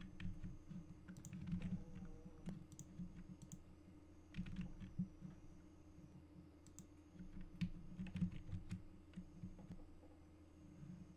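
Scattered computer keyboard keystrokes and mouse clicks, coming in irregular clusters, over a faint steady low hum.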